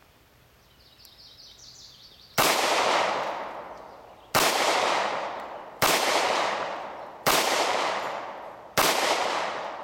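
Five .45 ACP pistol shots from a Seecamp-converted Detonics Combat Master, the first fired double action after a slightly longer pause, the rest following about a second and a half apart. Each shot is a sharp crack with a long echoing tail.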